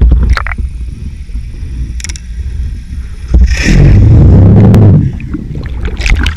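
Muffled water rumble picked up through a GoPro camera's waterproof housing under water, with a few faint clicks. A loud rush of water comes in about three and a half seconds in and lasts about a second and a half.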